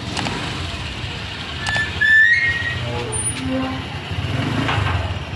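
Steady rumble of road traffic or a vehicle in motion, with a short high whistle-like tone about two seconds in and a few brief lower tones after it.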